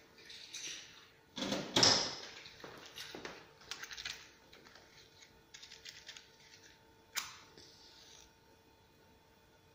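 A box of matches being handled and a match struck: rattling clicks and scraping, with the loudest scrape about two seconds in, then a sharp strike about seven seconds in followed by a brief hiss as the match flares.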